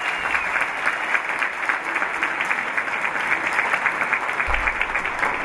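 Audience applauding, many hands clapping in a dense, steady run.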